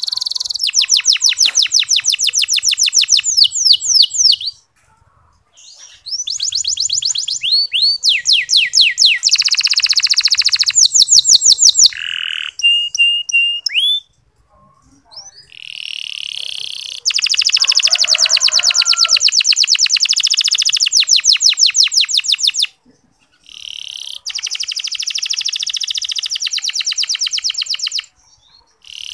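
Domestic canary singing ngeriwik: long phrases of very fast, fine rolling trills, each a rapid run of high repeated notes, broken by short pauses. It sings four such trill phrases with a few single whistled notes between them.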